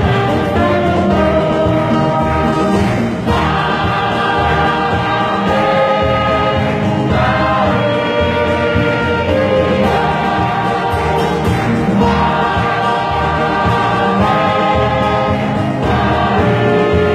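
A choir singing a hymn in sustained phrases, with instrumental accompaniment from keyboard and brass.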